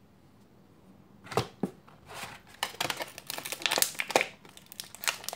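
Clear plastic blister packaging crinkling and clicking as it is handled and a small figurine is worked out of it. The sound starts about a second in with a sharp click, then continues as a busy run of clicks and crinkles.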